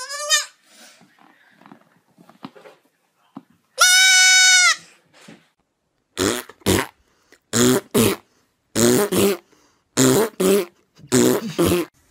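Goat kid bleating: a short rising cry at the very start, then one long, loud, steady bleat about four seconds in. From about six seconds on comes a run of short rough noises, mostly in pairs, from another source.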